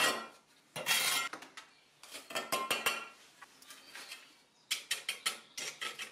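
Mason's trowel scraping and clinking on a concrete screed floor as wet screed is dropped into a drilled hole and smoothed flush. There are short scrapes in the first three seconds, then a quick run of clinks and scrapes from about five seconds in.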